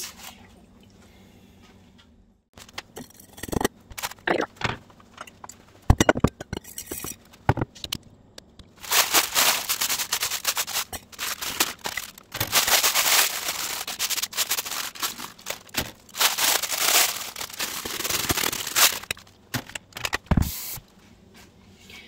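Dehydrated vegetable flakes crackling and rustling as they are scraped and brushed off a silicone mesh dehydrator sheet and wire trays. Scattered clicks come first, then long spells of dense, dry crackling about a third of the way in.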